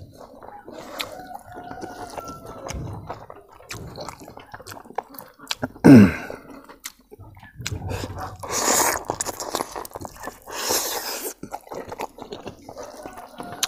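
Wet chewing and lip-smacking of a man eating boiled pork trotters and rice by hand, a stream of small sticky clicks. About six seconds in comes one loud, short sound that falls in pitch, and two longer hissing sounds follow near the end.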